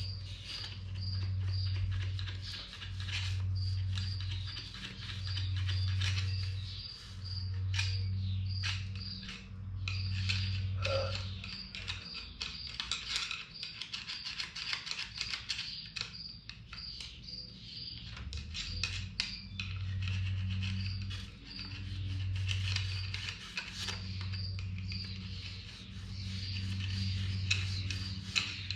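Emery cloth being rubbed by hand on the gasket surface of a Chevy 350 engine block: irregular, scratchy scrubbing, cleaning off old oil pan gasket material. Under it runs a low hum that swells and fades about every second and a half, and breaks up in the middle.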